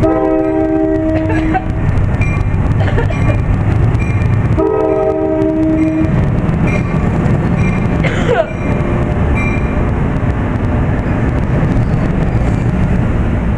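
NJ Transit ALP-46 electric locomotive sounding two horn blasts of about a second and a half each, then its train of multilevel coaches rumbling steadily past close by.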